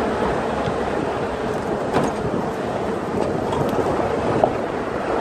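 Off-road jeep driving over a rough, potholed road, heard from inside the open vehicle: steady engine and road rumble with wind noise on the microphone, and a couple of short knocks as the jeep jolts.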